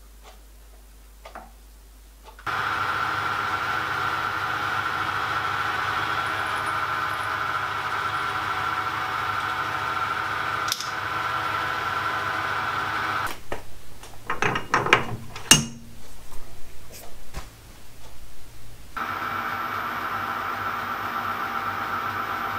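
A few light clicks as a drill bit is fitted into a lathe chuck, then a metal-turning lathe starts abruptly and runs with a steady motor and gear whine while a piston is turned. About halfway through, the steady running gives way for several seconds to irregular clicking and scraping, and then the lathe runs steadily again.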